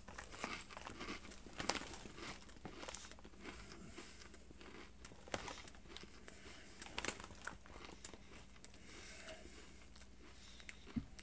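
Faint crinkling of a potato chip bag being handled and tipped up to the mouth, with scattered small crunches of chips being chewed.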